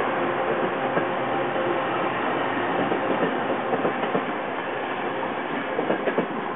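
Bilevel Amtrak California passenger cars rolling past, a steady rush of wheel and rail noise with irregular clicks from the wheels on the track. The sound eases a little as the last car goes by, with a few sharp clicks about six seconds in.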